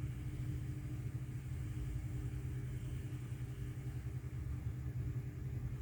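A steady low mechanical hum, with a faint higher tone held steady above it.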